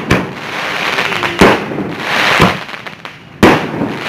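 Fireworks going off: four sharp bangs about a second apart, with crackling and hissing between them.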